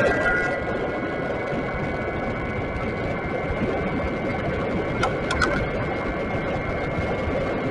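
Bafang BBS mid-drive electric bike motor whining steadily under way, over a rumble of road and wind noise, with a few sharp clicks about five seconds in.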